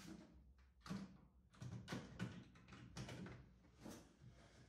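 Faint, scattered light knocks, taps and scrapes of parts and hands being moved about on a car's bare steel floor pan, several in a row with short pauses between them.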